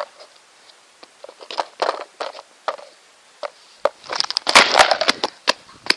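Cracking and crunching of a cracked wooden skateboard deck being broken further underfoot: scattered sharp snaps, then a dense burst of crackling about four seconds in.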